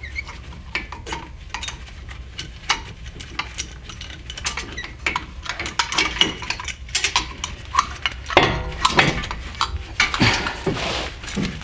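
Metal tools and brake caliper parts clinking and clicking irregularly as a piston compressor tool is set into the caliper, with a short scraping noise near the end.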